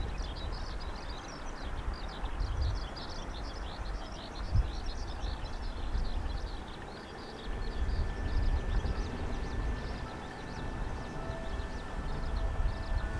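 Echizen Railway 7000-series electric train (a converted JR 119-series railcar) running in the distance, heard as a low rumble that swells and fades, with a thin steady whine coming in about halfway. Dense high chirping goes on over it throughout.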